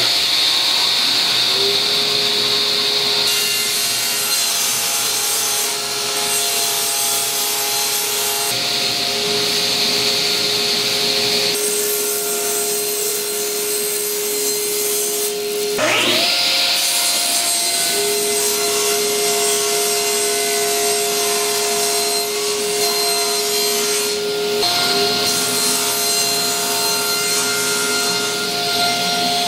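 Electric power saw cutting Baltic birch plywood into small pieces. The motor winds up to a steady whine, with repeated stretches of hissing as the blade passes through the wood, and winds up again about halfway through.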